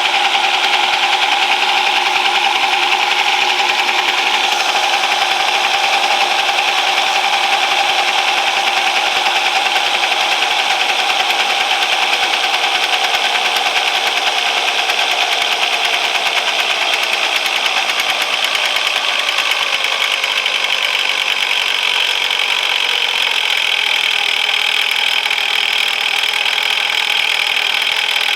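Hyosung SF50 scooter's 50cc two-stroke engine running with the variator cover off, at a fast idle that is too high. The revs ease down gradually about two-thirds of the way through and then hold steady.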